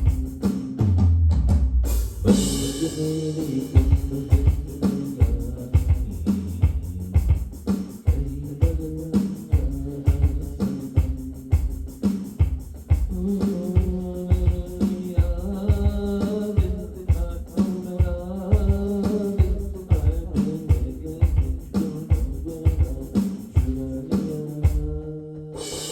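Music with a steady drum beat and bass, and a melodic line that stands out from about halfway through.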